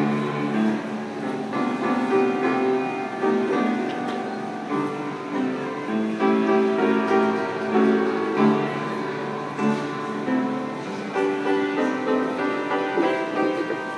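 Upright piano played continuously, a stream of chords and notes changing every second or so.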